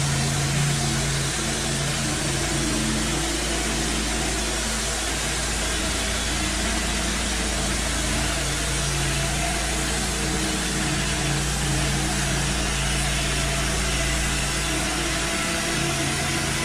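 Wood-Mizer LT15 band sawmill running at a steady speed, an even engine hum under a broad hiss.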